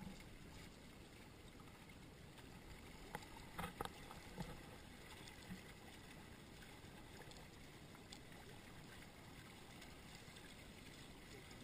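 Faint water washing against the hulls of a small Hobie Cat catamaran under sail, with a few light knocks about three to four and a half seconds in.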